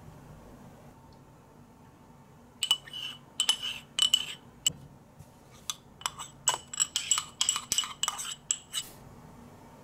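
Metal spoon clinking and scraping against the inside of a small cup while stirring gummy-candy mix: a run of quick, irregular ringing clinks that starts about two and a half seconds in and stops near the end.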